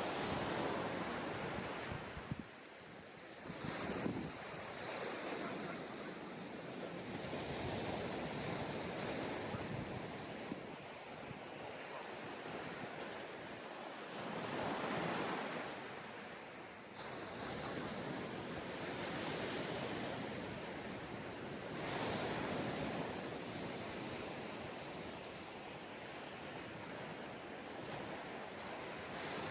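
Sea waves breaking and washing up a sandy beach, a steady surf hiss that swells and eases every several seconds.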